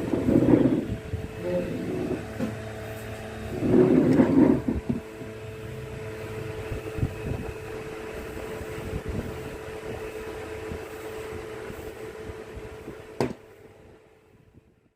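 A steady mechanical hum holding one fixed tone, with two louder rough stretches in the first few seconds and a sharp click near the end, after which the hum dies away.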